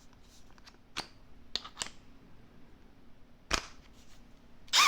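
Scattered sharp clicks and taps from handling a Milwaukee M12 Fuel drill/driver with its right-angle attachment, then a brief burst of the drill's motor whine just at the end.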